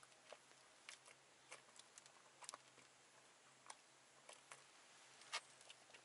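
Near silence with faint, irregular clicks of swallowing as a person drinks in long gulps from a large plastic bottle, over a faint steady low hum.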